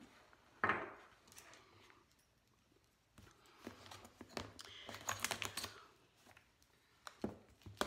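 Scattered clicks, taps and rustling of objects being handled on a tabletop, with one sharper knock about a second in and a busier run of clicking in the middle.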